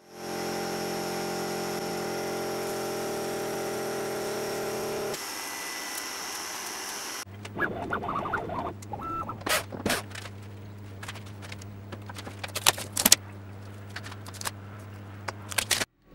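CNC milling machine spindle running steadily while milling a clear plastic sheet, a chord of steady whining tones that drops in level about five seconds in. About seven seconds in it gives way to a low steady hum with scattered clicks and taps.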